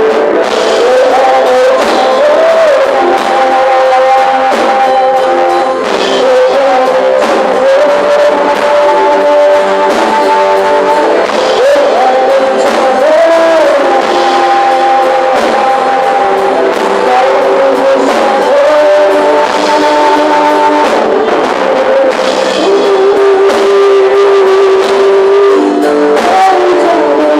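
A praise and worship song at a band rehearsal: a voice singing a melody over guitar accompaniment, with very little bass.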